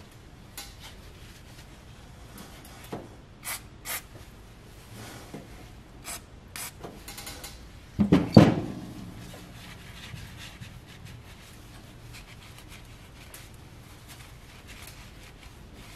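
Short hissing sprays from an aerosol can of brake cleaner aimed at brake-line fittings, several brief bursts in the first seven seconds, followed by a shop rag rubbing and wiping the fittings. A single loud knock about eight seconds in is the loudest sound.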